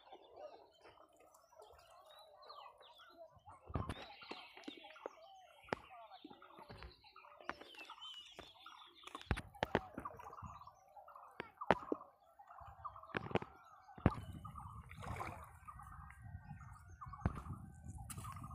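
Birds chirping and calling outdoors, mixed with scattered sharp clicks and knocks; about two-thirds of the way through, a low rumble sets in and stays.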